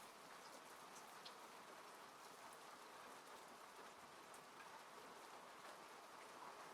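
Faint, steady rain falling on a car, with scattered light drop ticks through the hiss.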